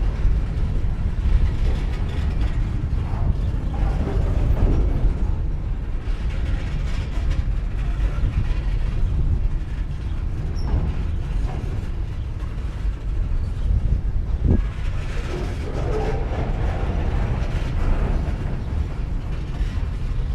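Empty coal train of open hopper cars moving slowly on the track, with a steady low rumble and metal creaks and knocks from the cars. There is one sharper knock about fourteen and a half seconds in.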